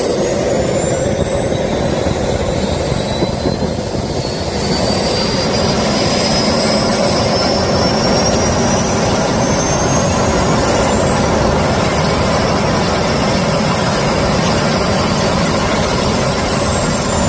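Small model turbojet engine running on a test run, its steady jet noise carrying a high turbine whine that rises in pitch as it spools up over the first dozen seconds and then holds. The level dips briefly about four seconds in before the engine comes back up.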